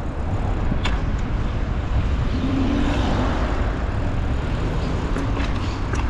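Passing road traffic heard from a moving bicycle: a steady low rumble of wind on the microphone, with a car's tyre and engine noise swelling to a peak about halfway through and then fading.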